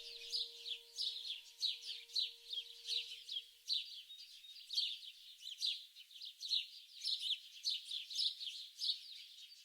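Songbirds chirping, many short downward-sweeping chirps two to three a second. A few held low tones fade out in the first three seconds.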